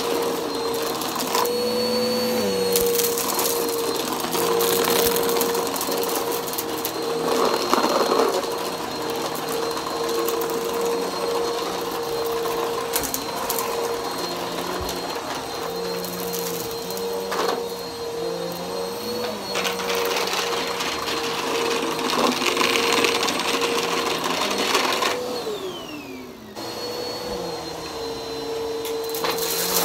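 Bagless upright vacuum cleaner running steadily on carpet with a high motor whine, with scattered clicks and crackles of debris being sucked up. Near the end the motor winds down briefly, then it is running again.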